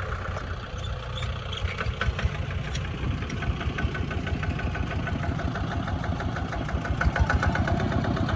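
An engine running steadily, with a fast, even ticking over its low rumble that grows a little louder near the end.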